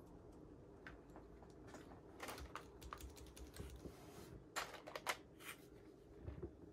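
Faint, irregular clicks and taps of plastic keycaps being handled and pressed onto the keyboard's switches, with the sharpest pair of clicks a little past the middle.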